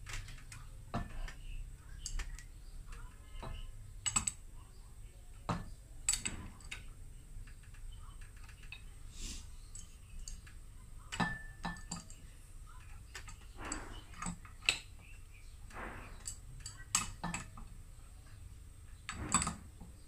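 Irregular metallic clinks and clicks of an adjustable wrench gripping and turning on a ceiling fan's steel motor head and shaft, with a few short scrapes, as the head is loosened to open the fan.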